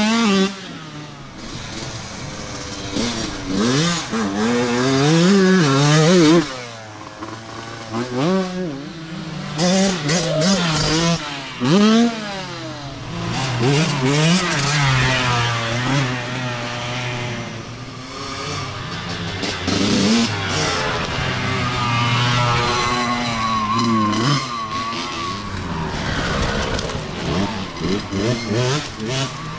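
Youth dirt bike engines revving as riders pass one after another, the pitch climbing and falling repeatedly as they accelerate and shift, each bike growing louder and then fading.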